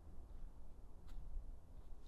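Footsteps on a dry, leaf-covered forest trail: soft crunches about every three-quarters of a second, the clearest about a second in, over a faint low rumble.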